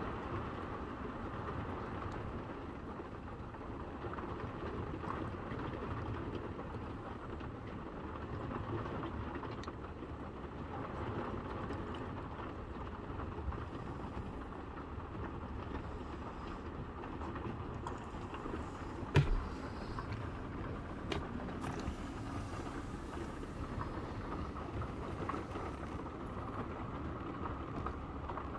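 Steady low roar of a flood storm: heavy rain and rushing floodwater, with one sharp knock about two-thirds of the way through.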